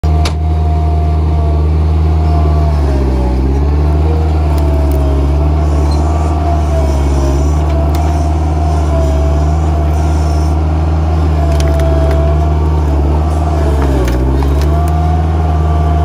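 Bobcat 743 skid steer engine running hard with a steady whine that follows engine speed; twice, about three seconds in and near the end, the engine pitch sags and recovers as the machine pushes its forks against a tree stump. A few light clicks and knocks over the top.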